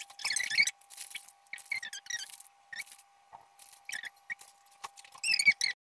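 Irregular short squeaky scrapes and rustles of hands and a plastic spatula working at a glass baking dish of mashed potato, with grated cheese being scattered on top. A faint steady hum runs underneath, and everything cuts off just before the end.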